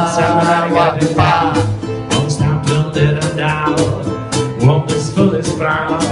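Small acoustic swing band playing: rhythmic strummed ukulele and washtub bass notes under a bending lead melody line.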